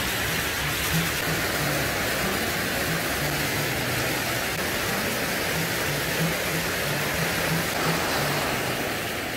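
Sea surf washing steadily over shoreline rocks: an even rush of breaking water.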